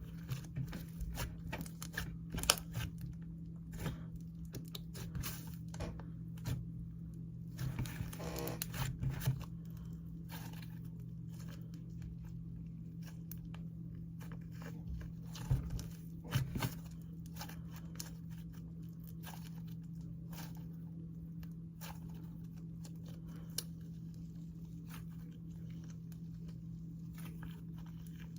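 Slime being mixed and squished by hand: scattered sticky pops and crackles, busiest in the first ten seconds and again briefly around the middle, over a steady low hum.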